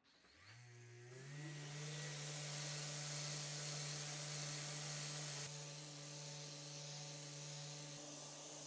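An electric power-tool motor spinning up with a rising whine, then running steadily with a hum and an airy hiss. It drops a little in level about five and a half seconds in.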